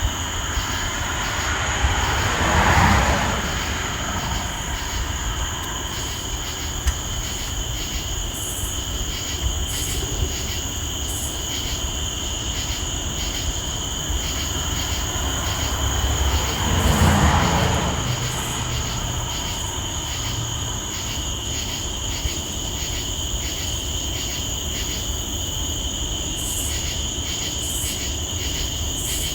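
Crickets chirping steadily in a dense night chorus, a high pulsing trill. Two brief swelling whooshes of broader noise rise and fade over it, about three seconds in and again about seventeen seconds in.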